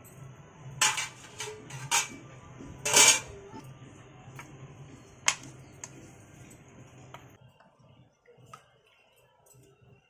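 A steel serving spoon clinking and scraping against a steel kadai and steel bowls as curry is ladled out. There are a few sharp clinks, the loudest about three seconds in, over a steady low hum that stops a little after seven seconds.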